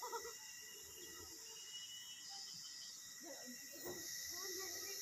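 Faint, steady chorus of insects, crickets trilling on several thin high pitches.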